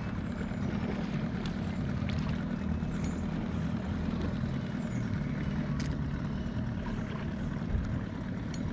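Steady low drone of a distant motorboat engine running out on the lake.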